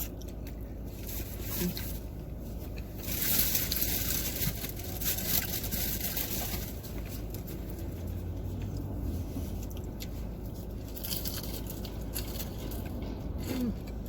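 Steady low hum of a parked car's idling engine heard inside the cabin, under rustling of fast-food wrappers and small scrapes and crunches of eating. The rustling is loudest from about three to seven seconds in.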